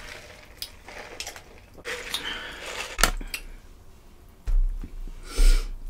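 Close-miked eating sounds: a sip through a straw from a fountain cup, then small clicks and rustles from handling a hot chicken wing, with a louder rush of noise near the end.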